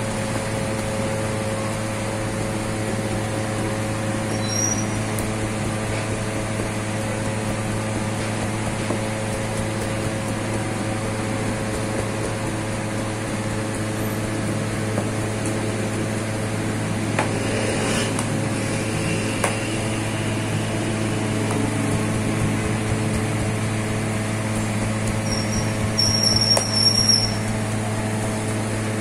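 Steady mechanical hum of bakery machinery, with a constant low tone. There are a few brief knocks a little past the middle and a louder cluster of them near the end.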